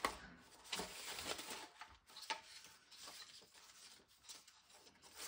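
Faint rustling and shuffling of paper scraps as hands leaf through a tray of collage papers, with a few soft taps.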